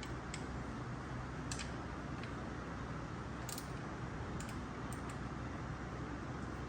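A few light, sharp clicks and taps at uneven intervals, the strongest about three and a half seconds in, over a steady low hum: small metal parts and hand tools being handled during a truck teardown.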